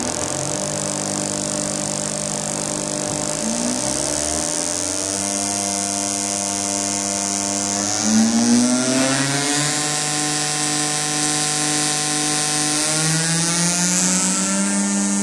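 Hydraulic servo actuator under oscillating drive on a test rig: a steady buzz whose pitch shifts in steps and glides upward midway and again near the end, over a constant high hiss.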